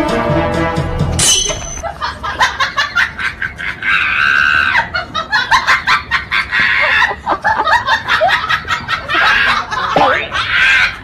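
Women's voices screaming and laughing in rapid choppy bursts, with a few longer high cries, after the music cuts off about a second in.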